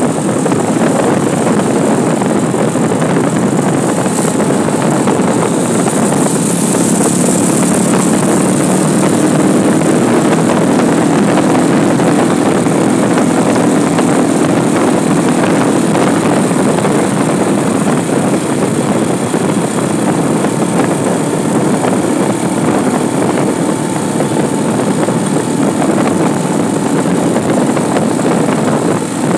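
Steady rush of wind on the microphone over the drone of a vehicle engine, recorded from a vehicle moving along a road. The engine hum stands out more clearly about a third of the way in.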